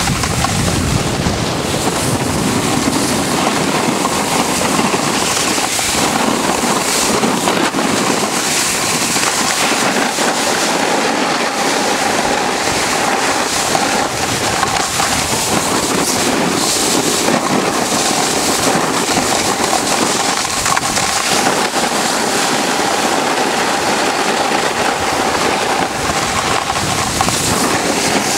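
Steady, loud rushing wind on the microphone mixed with the grainy scrape of riding over hard-packed, icy snow while moving downhill.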